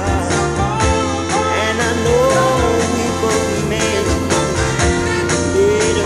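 Background music with singing: a song with a sung melody over a steady beat and bass line.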